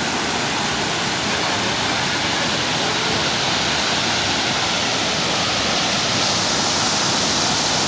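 Steady rushing of a waterfall, an unbroken wash of falling water.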